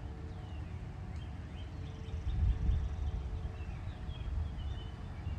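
Wind rumbling on the microphone, with birds chirping: a string of short, high-pitched, sliding chirps through most of the clip.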